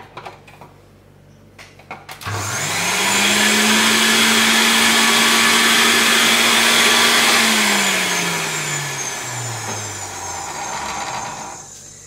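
Moulinex centrifugal juicer running empty: a couple of switch clicks, then about two seconds in the motor spins up with a rising hum to a loud high-speed whir. It is switched off about halfway through and winds down, its tone falling until it stops near the end.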